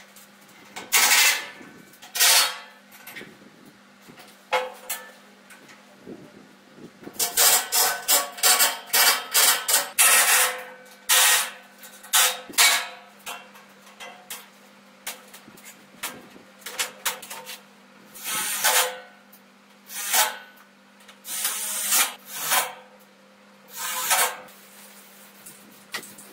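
Irregular short scraping and clattering noises from hand work on a metal frame, some single and some in quick runs, over a low steady hum.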